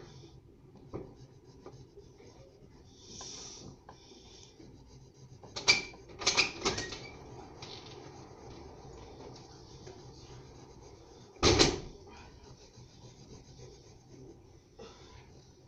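A wooden pencil scratching softly on paper as a drawing is sketched, broken by a few short loud bumps about six seconds in and one more near twelve seconds.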